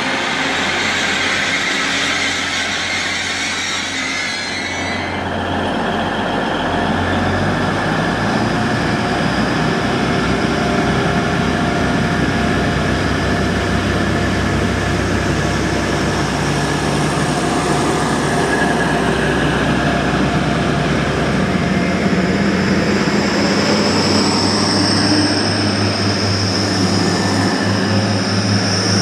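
Diesel multiple unit's engines running, with a hiss that stops about five seconds in, then a high whine that rises in pitch through the second half.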